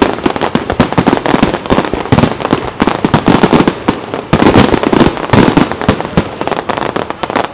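Aerial fireworks shells bursting in a rapid, dense barrage of bangs and crackles.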